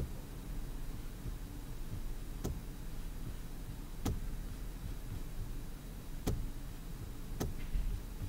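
Computer mouse button clicking: single sharp clicks one to two seconds apart, about five in all, over a low steady hum.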